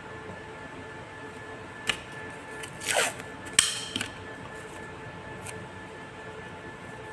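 A strip of 3M breathable tape pulled off its roll and torn off: a click just before two seconds in, then a short rip falling in pitch about three seconds in and a sharper tear soon after. A faint steady hum runs underneath.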